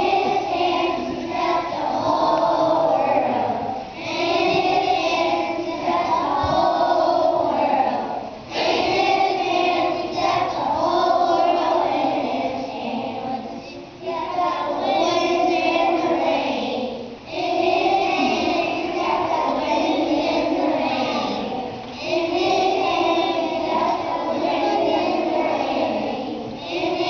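A choir of young children, three to five years old, singing a song together in phrases of a few seconds each, with brief breaks between them.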